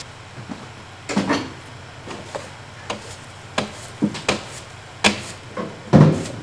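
Irregular knocks and thuds of things being handled and set down while a wooden tent cabin is packed up and swept out, one every half second to a second. The loudest, a heavier dull thud, comes near the end.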